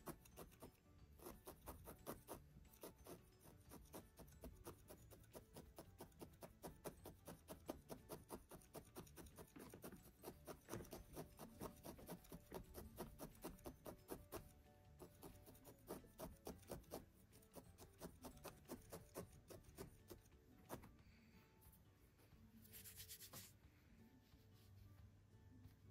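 A felting needle repeatedly stabbing through wool into a wool felting pad, a fast run of soft pokes, several a second. Near the end there is a brief rustle.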